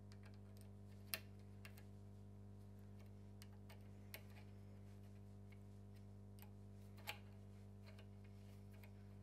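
Sparse faint metal clicks of a hex key working M6 grub screws in a steel tool holder, the clearest about a second in and about seven seconds in, over a steady low hum.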